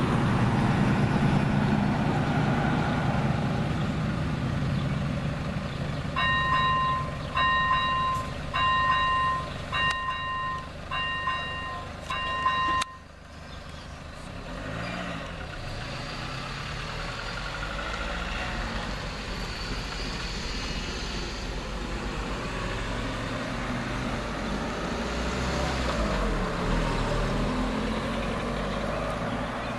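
Level-crossing warning bell ringing about six times, roughly once a second, then cutting off suddenly about halfway through. Before it a low rumble fades away; after it cars pass over the crossing.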